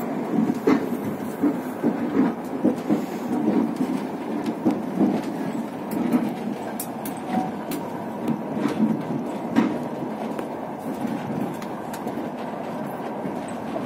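Passenger railway carriage running on the rails, heard from inside a sleeper compartment: a steady rumble with irregular knocks and rattles.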